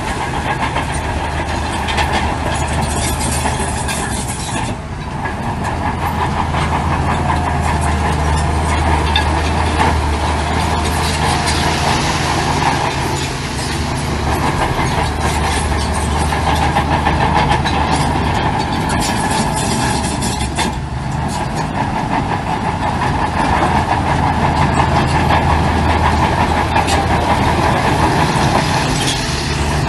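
Heavy diesel earthmoving machinery running steadily under load, with frequent clanking and rattling over the engine's drone.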